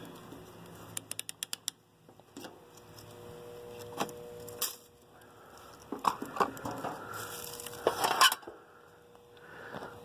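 Handling noises on the sheet-metal cabinet of a heat pump's outdoor unit: a quick run of about eight clicks, then scattered knocks and a spell of rustling, under a faint steady hum.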